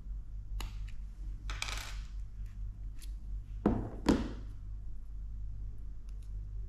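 Small clicks and a brief scratch as a metal SIM ejector pin is worked into a smartphone's SIM tray, then two louder clinking knocks about four seconds in as the phone is set down on a table.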